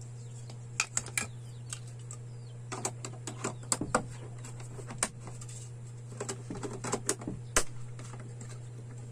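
Plastic switch cover plates being fitted onto wall switch boxes: a scattering of light plastic clicks and taps, with the loudest snap near the end.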